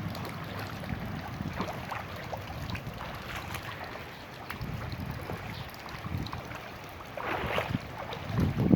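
Floodwater sloshing and splashing in an irregular, steady wash, louder for a moment about seven seconds in and again near the end.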